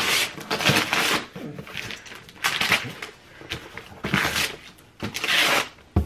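Striped gift wrapping paper being torn off a cardboard box in a series of quick rips, about five, with a brief low bump near the end.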